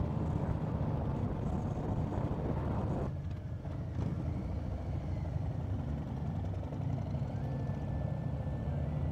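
Harley-Davidson V-twin engine running under way, recorded from the bike itself, with wind rush over it. About three seconds in the wind hiss thins while the low engine rumble carries on.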